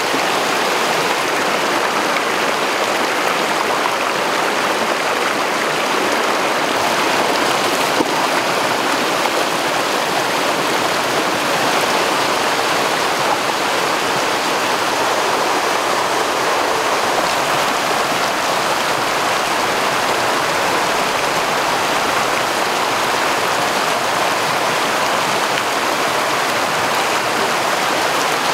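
Shallow stream water rushing and splashing over rocks, a steady, unbroken wash of white water.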